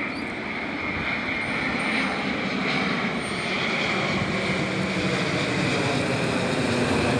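Twin-engine jet airliner flying low overhead: a steady engine rush with a high whine, slowly growing louder as it comes nearer.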